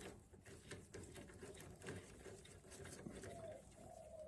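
Near silence, broken by faint small clicks and scuffs from brake caliper parts and tools being handled.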